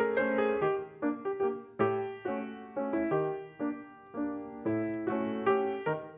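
Solo piano playing, with chords and single melody notes struck and left to ring and fade between strikes.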